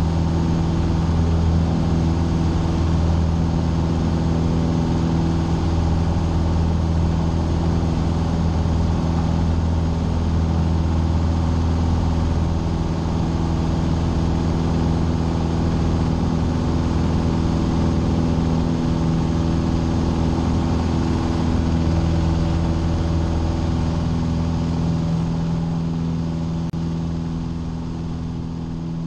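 Piper PA-28 Warrior's four-cylinder Lycoming engine and propeller running at a steady high power through liftoff and the climb-out, heard inside the cabin. The sound eases off slightly near the end.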